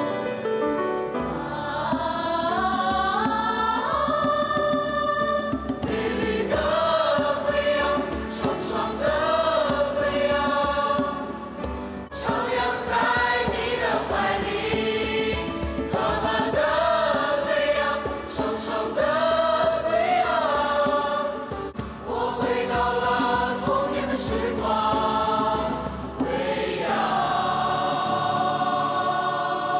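Song with sung vocals over music, in phrases of a few seconds each.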